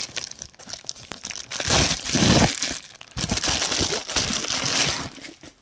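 Packaging crinkling and tearing as a book is unwrapped. It comes in two long spells of rustling and ripping and stops shortly before the end.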